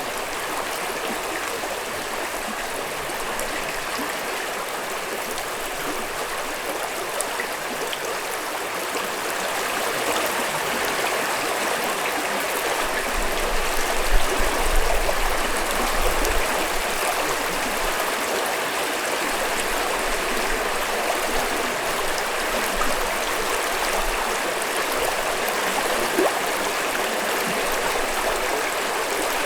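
A stream flowing steadily, its water rushing and gurgling without a break. A brief low rumble sits under it about halfway through.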